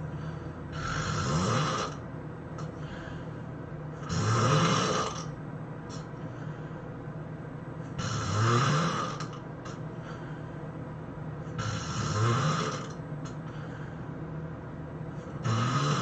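A person snoring loudly in a regular rhythm: five harsh snores, about one every four seconds, each rising in pitch as it goes.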